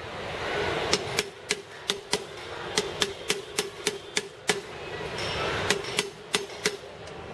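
Hammer tapping a bearing driver to press a 6204 ball bearing into a motorcycle front wheel hub, with the bearing about halfway home. About twenty short, sharp taps come in quick runs of roughly three a second, with brief pauses between runs.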